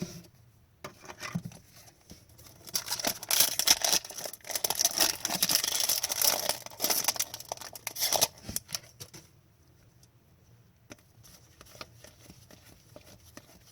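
Foil wrapper of a hockey card pack being torn open and crinkled for about five seconds, followed by a few faint clicks of cards being handled.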